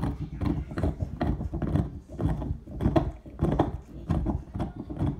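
Pit bull gnawing on a deer antler: a steady run of hard crunching, grinding bites, about two or three a second.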